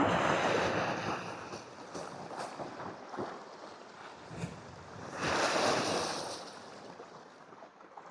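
Sea waves washing against shore rocks, surging twice about five seconds apart.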